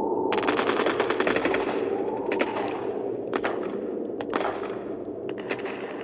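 War-film gunfire: a rapid burst of machine-gun fire starting about half a second in and lasting about a second, then single shots roughly once a second, over a steady low rumble.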